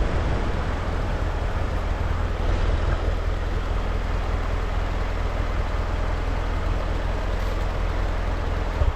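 Vehicle engine running steadily at low speed, a low rumble, that cuts off abruptly near the end.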